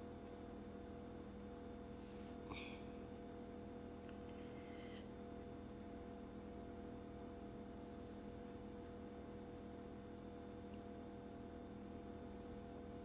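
Quiet room tone with a faint steady electrical hum and a few soft brief rustles.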